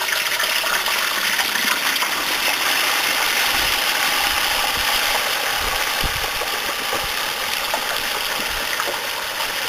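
Hot frying oil bubbling and sizzling hard as a whole turkey is lowered slowly into a turkey-fryer pot, a steady loud hiss, with the oil splashing. A few low thumps come about halfway through.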